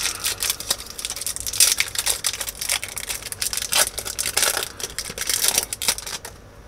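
Foil Pokémon booster pack wrapper crinkling and tearing as it is handled and opened, a dense run of irregular crackles that dies down near the end.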